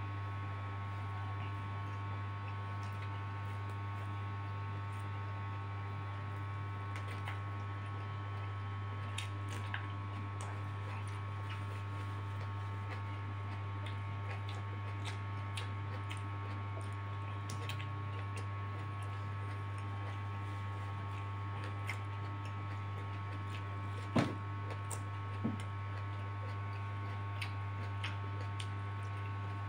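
Close-miked eating by hand: soft scattered chewing and mouth clicks over a steady electrical hum, with one sharper click about 24 seconds in.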